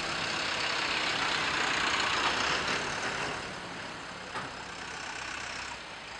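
Farm tractor engines running as the tractors drive past, louder for the first three seconds and then fading.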